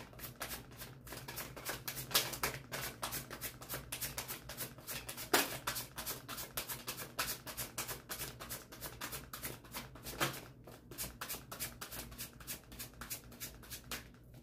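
Tarot deck being shuffled by hand: a quick patter of soft card flicks and slides, several a second, with two louder snaps about five and ten seconds in.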